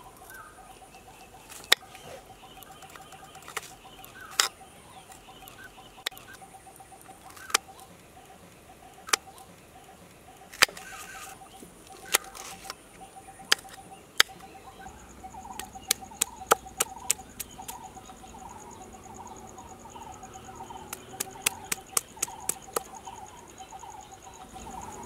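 Kitchen knife striking a hard cutting surface in sharp, separate taps as a green chili is slit and cut, then in quick runs of taps later on. Insects and birds chirp steadily behind, with a fast high insect trill coming in about halfway.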